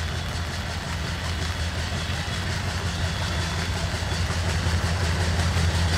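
Diesel locomotive's engine running with a steady low hum, slowly growing louder as the train draws nearer.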